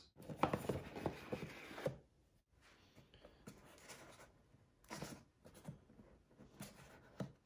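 Light rustling and scattered clicks of hands handling a cardboard box and lifting the plastic Bluetooth intercom units out of their packaging insert. The handling is busiest for the first couple of seconds, goes quiet, then picks up again about five seconds in.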